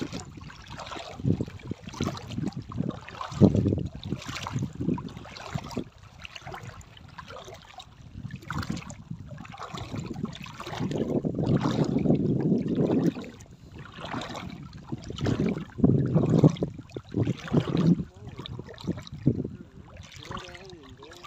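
Shallow seawater splashing and sloshing in irregular bursts, with a longer rush of water about eleven seconds in that lasts a couple of seconds.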